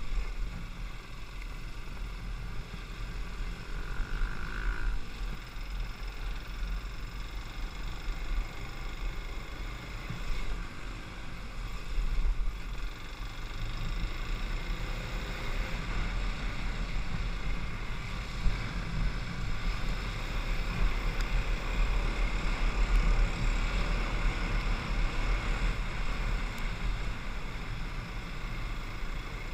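Kawasaki KLX 250 trail bike's single-cylinder four-stroke engine running continuously while riding a dirt track, mixed with rumble from the ride.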